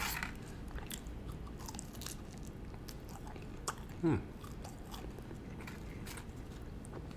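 Close-up mouth sounds of biting into and chewing a fried chicken leg: soft crunches and wet chewing, with a brief hum about four seconds in.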